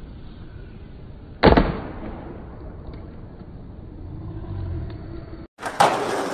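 A skateboard landing hard on concrete about a second and a half in, one sharp slap that rings off, followed by the wheels rolling. Near the end, after a brief cut, more sharp skateboard clacks.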